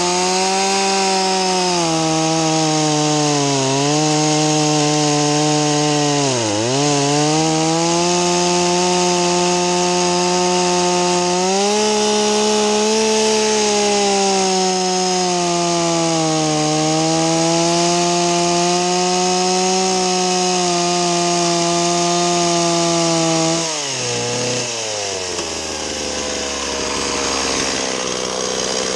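Stihl 029 two-stroke chainsaw plunge-cutting into a log at full throttle, its engine note dipping briefly twice as the chain bogs in the wood. About 23 seconds in, the throttle is released and the engine drops to idle.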